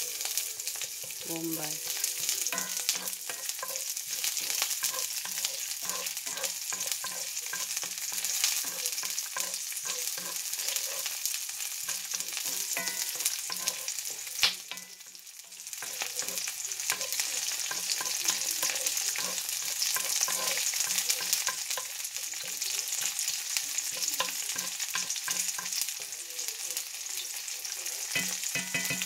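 Garlic and red onion sizzling in hot oil in a cast iron skillet, stirred and scraped around the pan with a wooden spoon. There is a single sharp tap about halfway through, and the sizzle is briefly quieter just after it.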